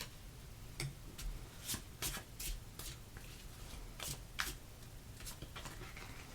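Tarot cards being shuffled and handled: a string of short, irregular card snaps and flicks.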